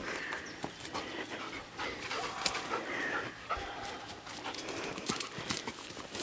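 Belgian Shepherd Groenendael panting and sniffing as it searches through garden plants, with irregular footfalls and rustling.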